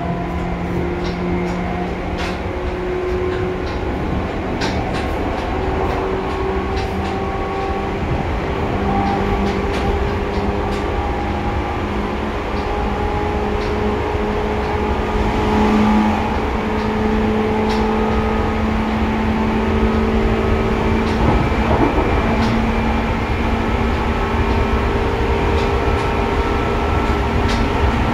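Seibu 2000 series electric train running, heard from inside the car over the line breaker. Steady motor and gear tones slowly rise in pitch over a constant rumble of running noise, with scattered clicks in the first half.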